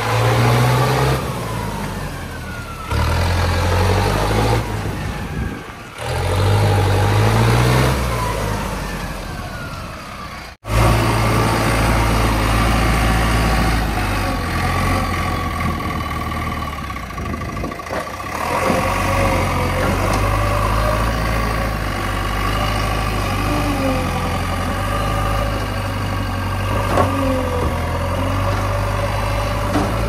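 Diesel engines of a Mahindra Arjun tractor and a JCB 3DX backhoe loader running under load in mud and water. The engine note rises and falls for the first ten seconds or so, breaks off suddenly, then runs steadier.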